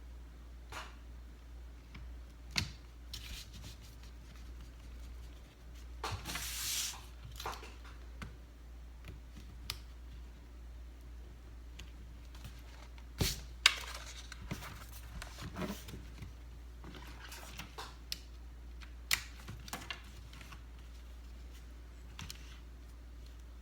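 Hands working on an opened MacBook Air laptop: scattered small clicks and knocks of parts and tools, with a brief stretch of rustling about six seconds in, over a steady low hum.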